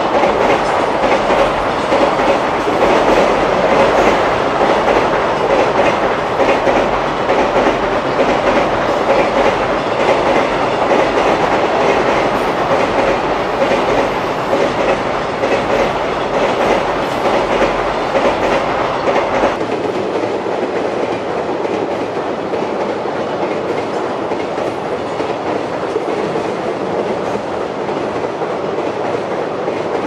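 JR Freight container train passing at speed, its wagons' wheels running over the rails in a steady, loud clatter. About two-thirds of the way through the sound changes abruptly to a lighter clatter with less deep rumble, as a container train crosses a girder bridge.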